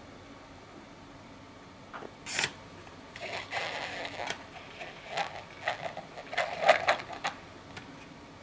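Hard plastic dropper tool knocking and clicking against a plastic tray as it is pressed down into liquid. The sharp plastic clicks and taps begin about two seconds in and come irregularly, mixed with some wet sloshing, and the loudest click comes near the end.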